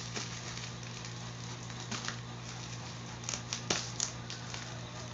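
Scattered soft clicks and crinkles of a taped cardboard box and its packaging being handled, over a steady low hum.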